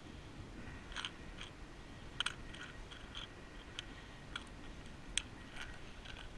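Scattered sharp crunches and clicks of stones and gravel being disturbed, about half a dozen over a few seconds, faint overall.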